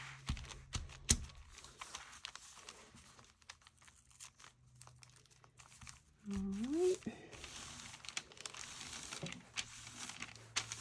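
Paper being handled, rustling and crinkling, denser in the second half, with a few sharp taps near the start. A short rising hum from a voice is heard about six seconds in.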